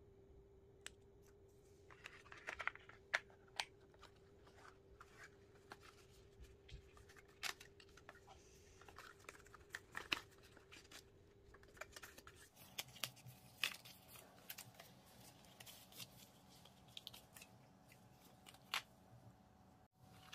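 Faint handling noise of a smartwatch and its cardboard box pieces: scattered sharp clicks and taps with brief rustles of packaging, over a faint steady hum.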